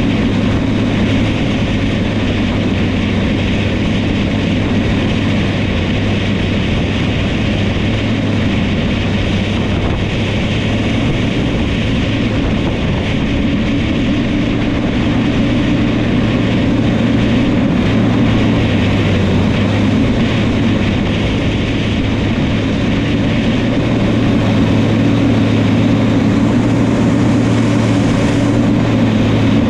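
New Holland crawler dozer's diesel engine running steadily as the machine works, with a deep constant drone; it grows a little louder in the last few seconds.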